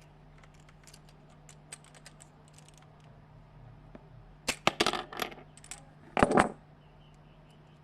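Small hard fidget spinner parts clicking and clattering as the spinner is pried apart by hand: light scattered clicks, then two short bursts of loud rattling clatter a little over halfway through.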